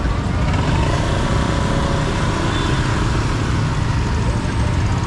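Busy street ambience: a steady low rumble of motor traffic running, with voices in the background.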